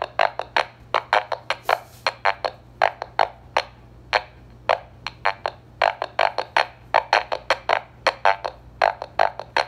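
Drum machine beat played through a homemade fuzz pedal: short, distorted hits several times a second, some ringing with a buzzy pitch, over a steady low hum. A knob on the pedal is being turned.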